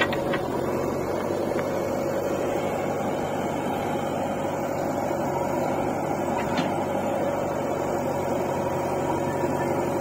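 Diesel engines of a JCB 3DX backhoe loader and a John Deere 50 HP tractor running steadily with an even low drone, with a few faint knocks.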